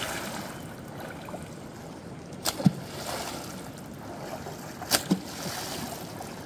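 River water running steadily, with a wooden pole slapping the water in pairs of sharp hits, twice, about two and a half seconds apart. This is the pole being beaten on the water to scare fish out of the rock caves toward a gill net.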